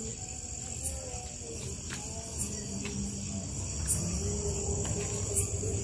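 Night insects, crickets, trilling in a steady high chorus, with a brighter chirp about once a second. Faint low wavering tones run underneath.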